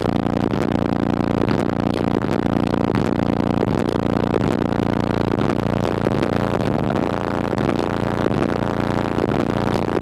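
Car-audio subwoofer driven to extreme excursion by a steady low bass tone, giving a loud, continuous droning buzz.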